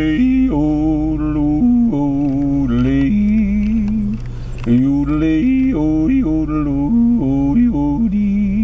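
A man yodeling: a string of held sung notes with sudden jumps in pitch between them and quick back-and-forth flips, breaking off briefly about halfway through.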